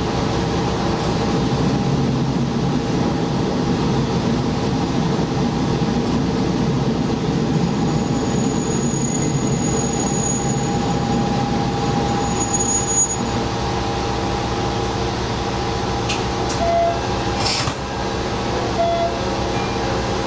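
Diesel railcar running along the track, heard from the cab: a steady engine drone whose low rumble lightens about two-thirds of the way through. A thin high squeal comes from the wheels in the middle, and a few short clicks sound near the end.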